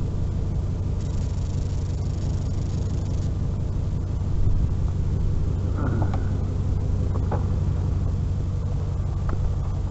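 Vehicle engine running steadily with a low, even hum, with a few faint clicks about six and seven seconds in.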